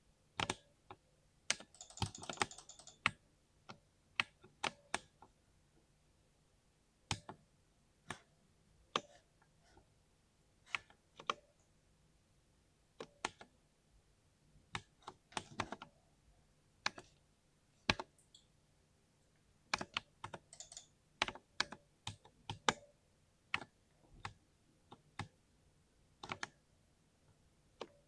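Keys being pressed on a 60% mechanical keyboard. The presses come as slow, irregular single keystrokes and small clusters with quiet gaps between them, and there is a quick flurry of presses about two seconds in.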